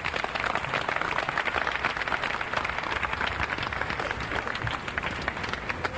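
Large audience applauding steadily with dense clapping.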